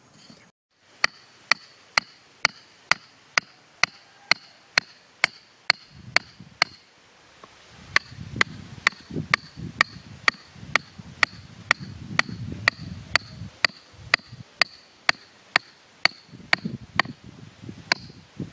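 Hatchet head knocking on the top of a wooden stake, driving it into hard dry earth: a steady run of sharp knocks, about two a second, with a short break about seven seconds in.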